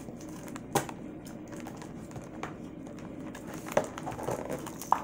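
Hard clear plastic packaging being handled and pulled apart: light crinkling with a few sharp plastic clicks, the loudest about a second in, more near four seconds and just before the end.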